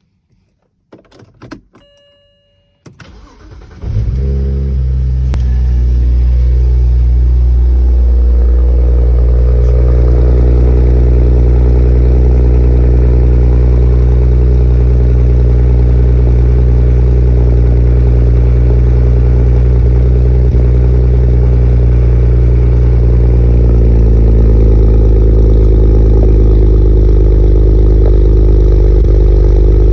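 BMW N54 twin-turbo inline-six in an E92 335i starting about four seconds in, after a few short electronic tones, then running at a high idle that drops and settles about ten seconds in. It idles with a misfire that the owner takes for a faulty fuel injector.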